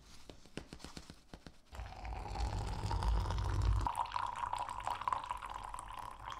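A few light clicks of handling, then, from about two seconds in, coffee pouring from a glass French press into a ceramic mug in a steady stream. The pitch of the pour rises slightly as it goes on.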